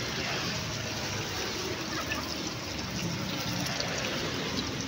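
Hot oil in a wok sizzling steadily with small crackles as egg batter fries and is rolled onto a bamboo skewer for telur gulung.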